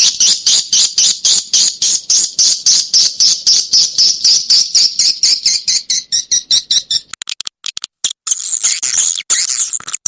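Recorded edible-nest swiftlet calls of a swiftlet lure track: a fast, even train of high chirps, about five a second. The chirps thin out into a short gap with a few clicks. From about eight seconds in they change to a denser, continuous twittering chatter. It is a call sound played to draw swiftlets into a nesting house.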